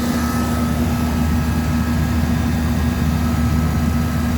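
An old York air conditioner's outside condensing unit running steadily: a constant hum with one strong low tone over the compressor and fan noise. It runs smoothly, with no rattling or bumping.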